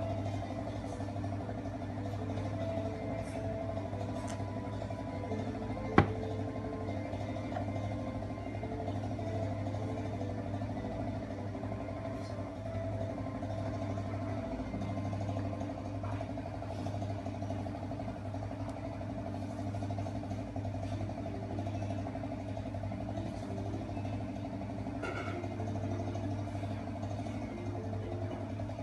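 Steady electrical hum and background noise picked up by a CCTV camera's microphone, with faint short tones coming and going, and one sharp click about six seconds in.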